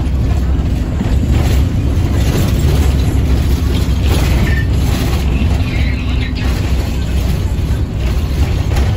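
Cabin noise inside a moving minibus: a steady low engine and road rumble with irregular rattling from the body and fittings.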